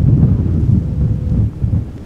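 Strong storm wind buffeting the microphone: a loud, gusty low rumble that surges and eases.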